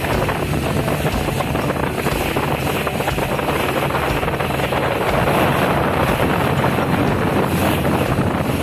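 Steady rushing of wind and sea past a ship underway, with wind buffeting the microphone over a low engine hum.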